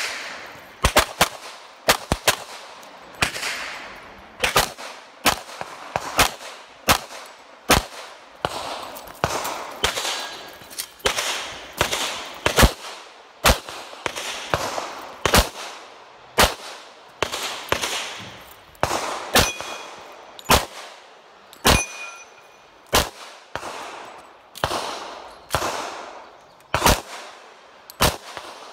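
Pistol fire during a timed practical-shooting stage: dozens of sharp shots in quick pairs and short strings, with gaps of about a second between groups. Each shot trails a short echo.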